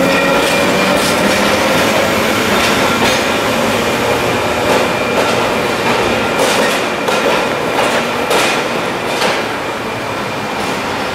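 Tramcar passing close by on the Trieste–Opicina line, its wheels clacking irregularly over the rail joints, with a steady whine and thin squeal from the running gear. It grows a little fainter near the end.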